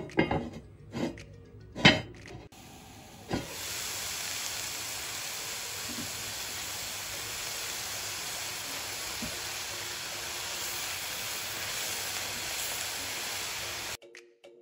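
A few knocks from the heavy cast-iron pot lid, then sliced leeks, grated carrot and diced potato sizzling steadily in hot oil in the pot as they are stirred. The sizzle cuts off suddenly near the end.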